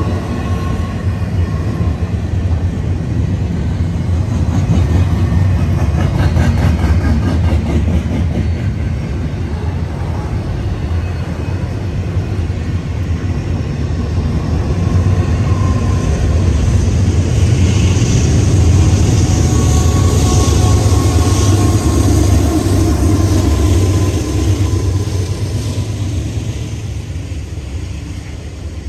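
Norfolk Southern double-stack intermodal container train rolling past close by: a steady low rumble of steel wheels on the rails with a hiss on top. It grows louder in the middle, eases off near the end, and carries a faint high squeal here and there.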